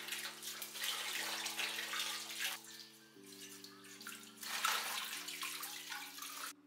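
Kitchen faucet running, its water splashing over a stainless steel mesh basket and a stainless steel pan as they are rinsed in a steel sink. The splashing eases for about a second midway and cuts off suddenly near the end. Soft background music with sustained chords plays underneath.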